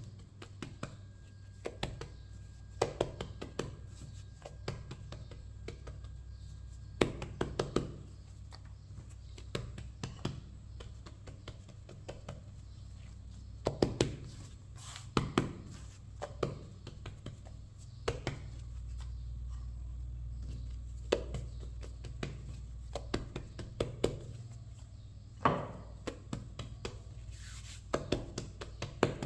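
Hands pressing and patting balls of soft bread dough flat on a floured stone countertop: irregular soft taps and knocks, often in quick clusters of several. A steady low hum runs underneath.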